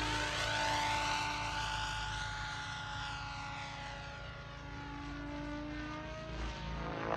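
Radio-controlled Banshee 850 model helicopter flying overhead: the steady whine of its rotor head and drivetrain, with tones that shift in pitch as it moves through the sky.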